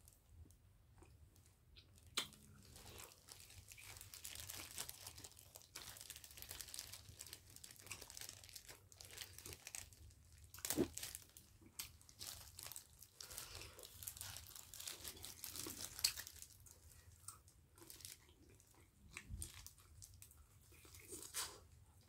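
Disposable plastic gloves crinkling as hands tear napa-cabbage kimchi apart, with wet tearing and some chewing; a few sharp clicks stand out about two, eleven and sixteen seconds in.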